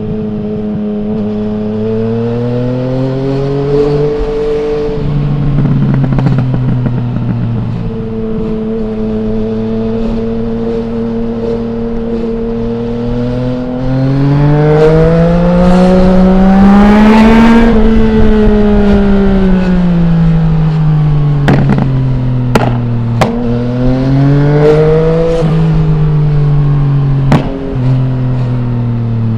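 Yamaha MT-09's 847 cc three-cylinder engine through an Akrapovic full exhaust with no dB killer, under way: the revs climb and fall repeatedly as it pulls and shifts, with the strongest, loudest pull about halfway through. As the revs fall off afterwards, a few sharp cracks come from the exhaust.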